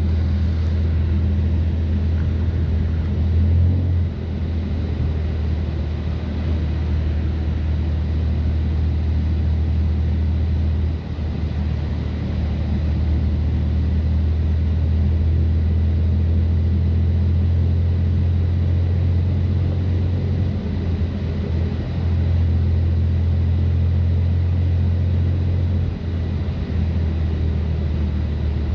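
2018 BMW M3 Competition's twin-turbo straight-six, with catless downpipes and an open-valve exhaust, running at low steady revs as a deep drone. The drone shifts briefly about 4, 11, 21 and 26 seconds in.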